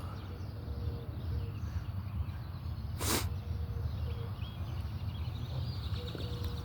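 Outdoor garden ambience: a steady low rumble with a single short rustle or scrape about three seconds in, and faint bird chirps.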